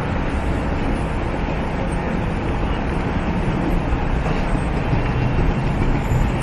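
Steady low rumble of city street traffic and a vintage Milan tram.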